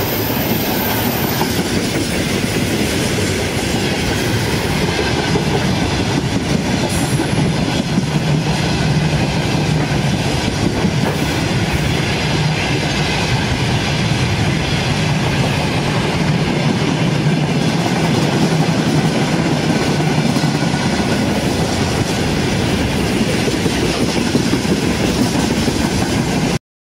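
Freight train of open wagons and loaded flatcars rolling past close by, its wheels clattering steadily over the rails. The sound cuts off suddenly near the end.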